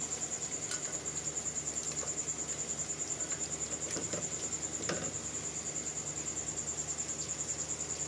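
A high, rapidly pulsing insect trill runs steadily throughout, with a few faint scrapes of a silicone spatula stirring beef pieces in a pot.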